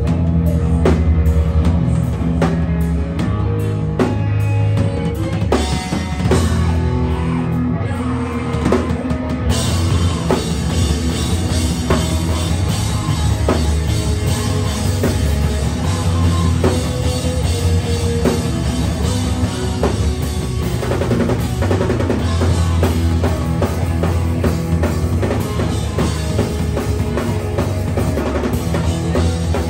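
Live screamo/hardcore band playing loud: drum kit, bass and electric guitar. About nine seconds in the sound fills out and brightens as the full band comes in heavier.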